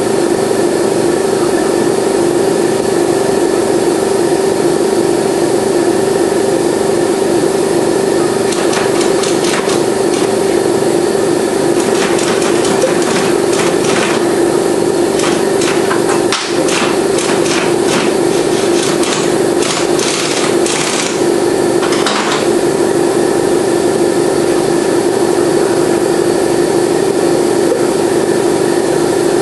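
A loud, steady mechanical drone at one pitch, with a run of sharp metallic clicks and knocks from hand tools working on the motorcycle engine, starting about eight seconds in and stopping about two-thirds of the way through.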